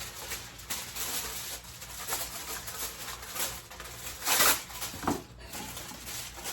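Kitchen handling noises while food is being seasoned: a run of irregular scratchy, rustling bursts, the loudest about four and a half seconds in.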